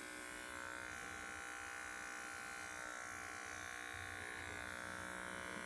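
Cordless electric pet clippers running with a steady buzz, trimming a young poodle puppy's fur.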